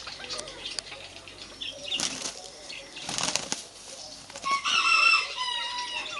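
Chicken flapping its wings in two short rushes, then calling with a few pitched squawks near the end.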